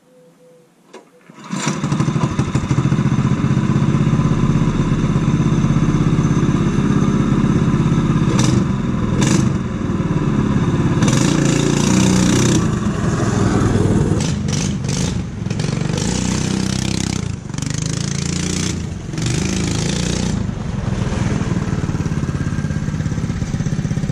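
Small single-cylinder gas engine on a homemade Power Wheels kart, no muffler, starting about a second and a half in and running loud, its level rising and falling as it is revved and driven.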